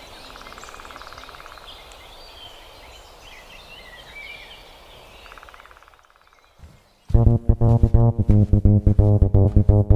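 Birds chirping over quiet outdoor ambience, with a short buzzing sound twice. About seven seconds in, loud music with plucked guitar and bass cuts in abruptly with a steady beat.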